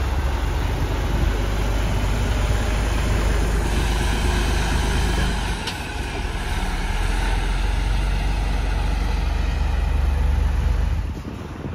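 Heavy four-axle box truck's diesel engine running with a steady low rumble as it drives slowly past. The sound dips briefly about six seconds in, with a short click, and falls away near the end as the truck moves off.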